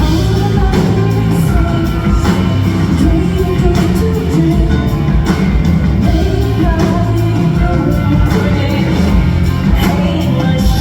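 Loud live band music in a large hall, recorded from the audience: a rock backing with drums under a woman singing.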